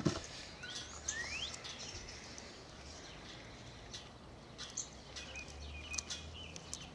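Birds chirping, several short rising calls, over a faint low steady hum. A few faint small clicks from the PVC end cap and rubber valve stem being handled.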